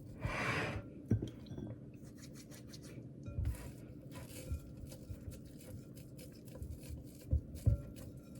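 Wet hands stretching and folding sourdough dough in a bowl: a brief rubbing swish about the first second, then soft handling sounds and a few dull thumps as the dough is pulled up and folded over itself, over a steady low hum.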